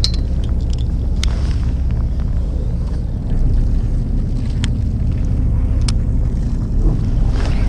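Fishing boat's engine running with a steady low rumble, a few light ticks over it.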